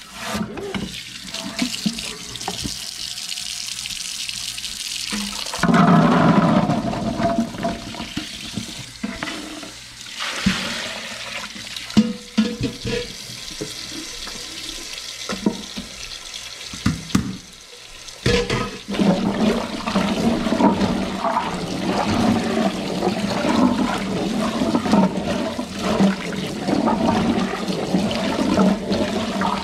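Water from a kitchen tap running into a stainless-steel sink as crabapples are rinsed and stirred by hand, with splashing of water and fruit. The flow gets louder about six seconds in, and there is more splashing in the last third.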